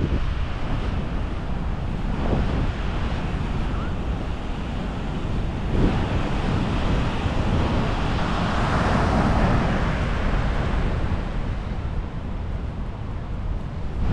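Wind buffeting the microphone over the wash of Atlantic surf breaking on a sandy beach, with the surf swelling louder about two-thirds of the way through.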